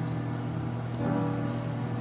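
Soft instrumental music with long held chords, the chord changing about a second in.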